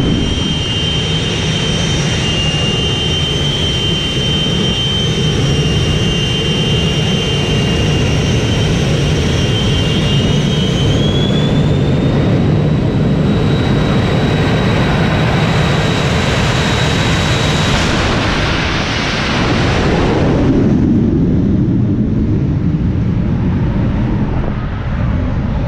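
Twin jet engines of a jet-powered Chevy pickup drag truck running with afterburners lit: a loud, steady jet whine over a heavy rumble, the whine rising in pitch about halfway through. Later the whine drops away and a broad roar swells and then eases off as the truck goes down the strip.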